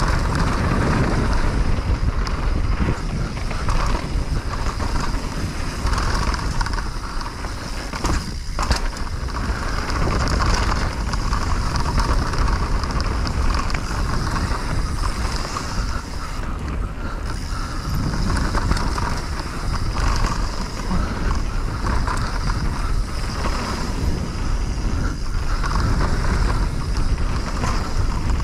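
Wind rushing over the microphone of a mountain bike riding fast down a dirt trail, with rolling tyre noise and scattered rattles and clicks from the bike.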